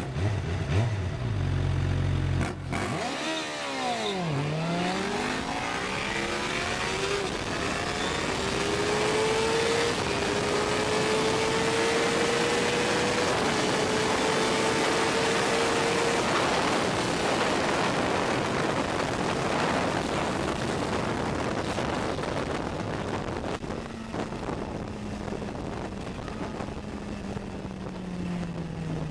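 A vehicle engine on a drag-strip run, heard from the moving vehicle: it runs low and steady, then about three seconds in the pitch dips and climbs hard at the launch and keeps rising as it pulls through its gears under heavy wind rush. Near the end the engine pitch falls as it slows.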